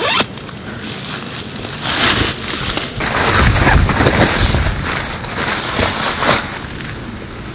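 Crinkling and rustling of a thin silver foil sheet and a plastic tarp being unfolded and spread over the shelter floor, loudest through the middle, with a brief low rumble about four seconds in.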